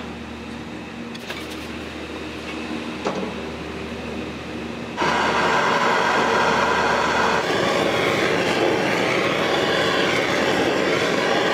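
Kitchen equipment: a steady hum, then about five seconds in a loud, steady rushing hiss starts suddenly and runs for about six seconds before cutting off sharply.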